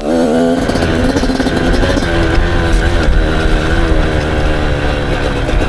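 Off-road vehicle engine revving hard under load on a dirt hill climb, its pitch rising and falling repeatedly with the throttle, over a low rumble.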